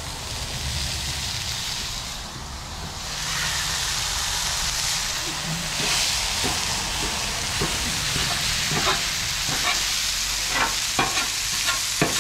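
Ground beef sizzling on a hot Blackstone flat-top griddle, a steady hiss. A metal tool taps and scrapes on the steel cooktop as it chops the meat into chunks, the taps coming more often in the second half.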